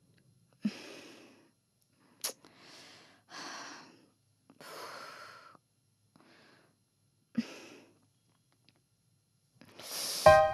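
A woman breathing heavily and sighing, about six breaths in a row, with a few sharp clicks among them. Near the end a whoosh swells and piano music comes in.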